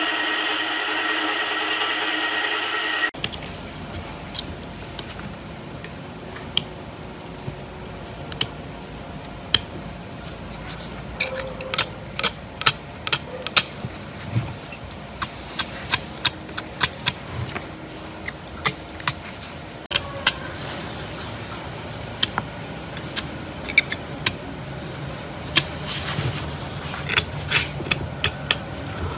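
A motor-driven wire wheel spins steadily while an electric motor armature is held against it, then cuts off about three seconds in. After that, a utility-knife blade is scraped by hand along the armature. The blade gives short, sharp scrapes and clicks, scattered at first and then coming several a second.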